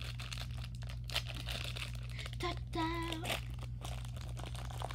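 Plastic wrapper of a two-cookie Golden Oreo pack crinkling and crackling as it is torn open and handled. A short hummed note comes a little past halfway.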